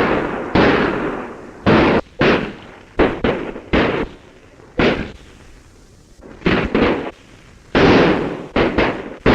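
Gunfire in a western shootout: about a dozen shots at irregular intervals, some in quick pairs, each ringing out with an echoing tail.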